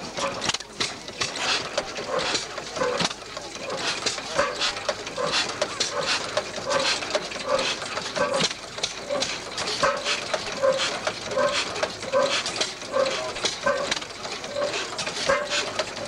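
Vintage stationary engine with twin flywheels running, giving a regular, even beat over a fast mechanical clatter.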